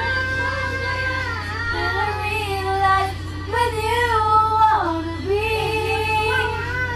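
A young girl's voice singing a melody in long held notes, sliding down in pitch about five seconds in, over a steady low hum.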